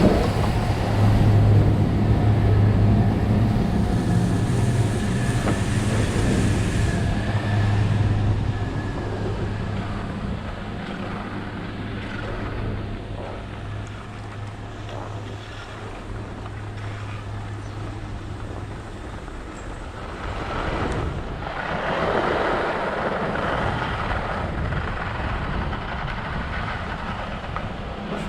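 Chairlift machinery running with a steady low hum that fades out about two-thirds of the way through. Rushing wind swells in gusts near the end.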